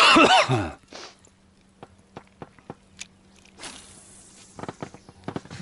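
A man's voice briefly at the start, then scattered light clicks from a spinning rod and reel being handled, with a short swish about three and a half seconds in as the lure is cast out again.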